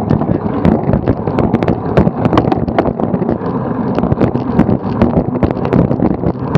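Wind buffeting the microphone of a camera mounted on a bicycle being ridden along a road, with a steady run of sharp rattling clicks from the bike and its camera mount.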